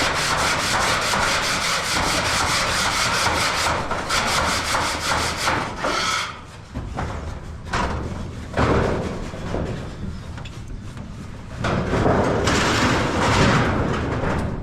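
Steady rhythmic rubbing strokes for about six seconds, then shorter bursts of rubbing with gaps between them.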